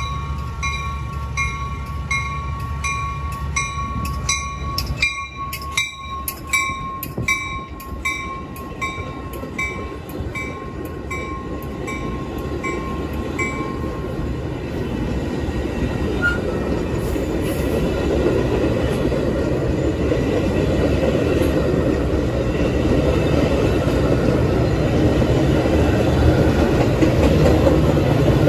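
Metra push-pull commuter train of stainless-steel bilevel cars passing close by: a rumble and rattle of wheels on the rails that grows louder toward the end as the pushing diesel locomotive nears. Over the first half a bell rings steadily, about three strikes every two seconds, then stops.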